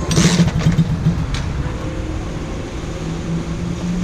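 110cc four-stroke pocket bike engine running on the choke just after a top-end rebuild, revved briefly at the start and then running steadily while the choke is adjusted.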